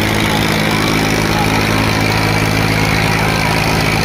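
Tractor diesel engine running at a steady, unchanging speed.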